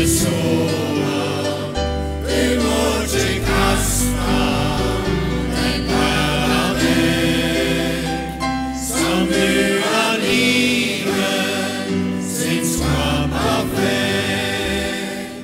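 Mixed choir of men and women singing a hymn, with piano accompaniment.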